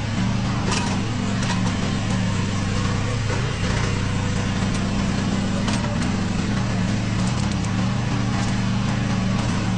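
Mini excavator's engine running at a steady speed, with a few sharp metallic clanks about a second in and again near the middle.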